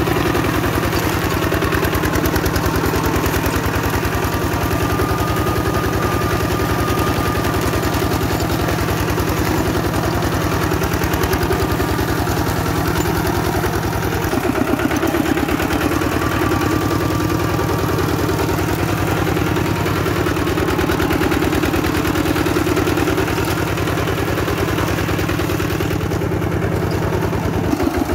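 Diesel engine of a Kubota bulldozer running steadily, its note shifting about halfway through.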